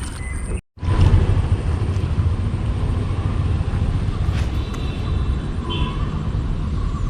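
Steady low rumbling noise, after a brief drop-out to silence just under a second in.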